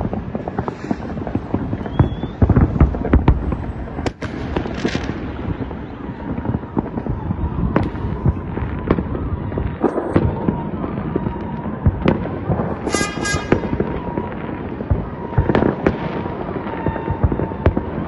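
Many distant, privately set-off fireworks going off across the city at once: a continuous rumble of bangs and crackling, with sharper single reports every second or so. A brief high-pitched tone sounds about two-thirds of the way through.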